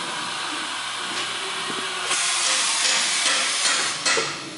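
Compressed-air hiss from a GMC Tu-Way Cuber's pneumatic cylinders as they push a block through the cutter. The hiss grows louder about two seconds in, and a sharp burst of air comes near the end.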